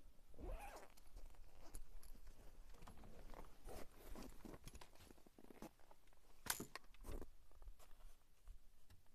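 Faint clothing rustle and handling noise with scattered clicks and light footsteps in snow. One sharper click comes about six and a half seconds in.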